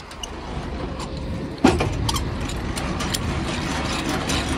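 Truck engine running with a steady low rumble, a sharp clunk about a second and a half in, after which the engine runs louder.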